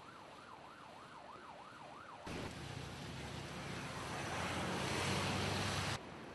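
An emergency vehicle siren sweeping rapidly up and down, about three times a second. A little over two seconds in it cuts abruptly to a loud rushing noise with a low hum under it, which swells and stops suddenly near the end.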